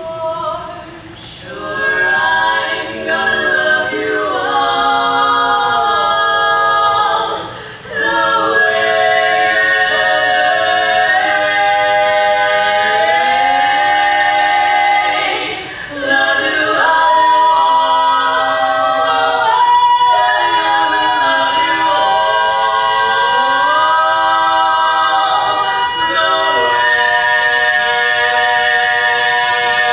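Women's barbershop quartet singing a cappella in close four-part harmony, with two short pauses about 8 and 16 seconds in.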